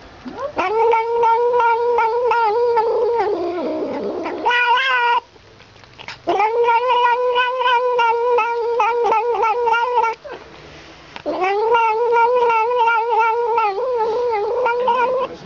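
Tabby cat making long, drawn-out humming "nam-nam" vocalizations while eagerly licking at the tip of a small bottle: three long calls of about four seconds each, held at one pitch with a wavering rhythm, with short breaks between them.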